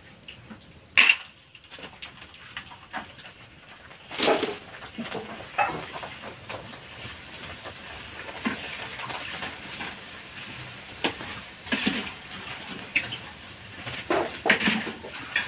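Metal spatula and wire skimmer knocking and scraping against a wok as krupuk crackers fry in hot oil, with a steady sizzle underneath. The knocks come singly at irregular intervals, a sharp one about a second in.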